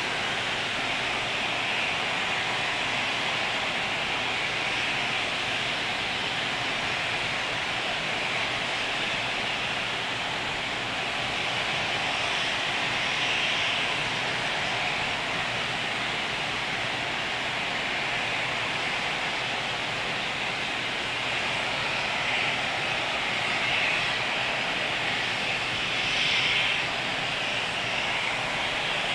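Distant roar of the Atlas V rocket climbing away after liftoff: a steady, rushing rumble that swells a little a few times near the end.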